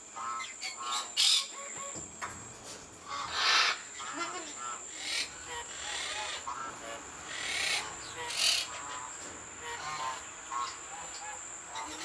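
Eclectus parrots calling during a courtship display: many short, soft, repeated pitched calls, with several harsh rasping squawks scattered through.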